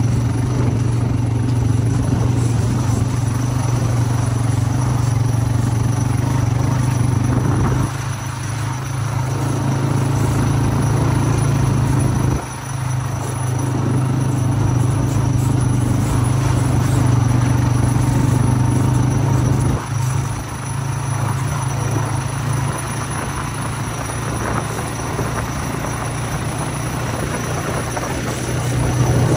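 ATV engine running steadily while the quad is ridden. Its sound dips briefly three times, about 8, 12 and 20 seconds in.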